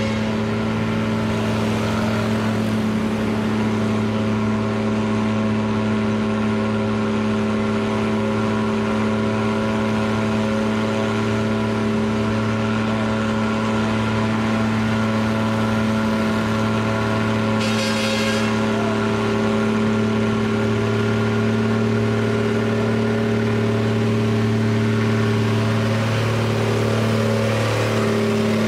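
Heavy diesel trucks labouring uphill on a steep mountain road, their engines holding a steady, loud pitch under load in a low gear. A short hiss cuts in about two-thirds of the way through, and the engine note shifts near the end as a truck comes close.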